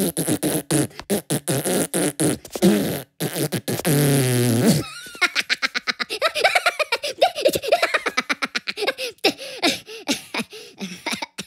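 Animated Minion characters laughing and babbling in squeaky high voices, with one long drawn-out fart sound lasting about a second, about three and a half seconds in.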